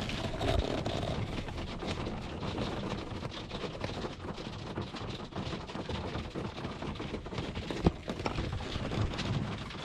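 Heavy downpour of big splodgy rain, perhaps with hailstones in it, drumming densely and steadily on the motorhome roof.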